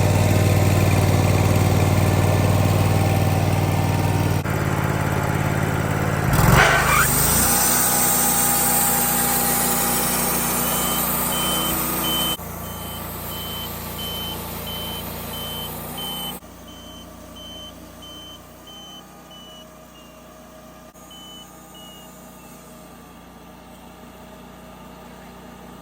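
Sawmill engine running steadily, with a brief rising sweep about six seconds in, then quieter stretches separated by abrupt cuts. A string of short high beeps sounds through the middle.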